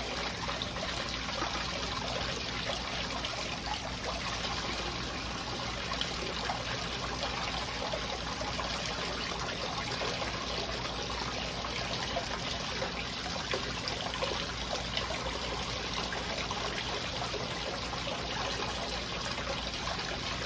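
Water running steadily down a small recirculating gold-cleanup sluice in an even trickle, over a low steady hum from the recirculating pump.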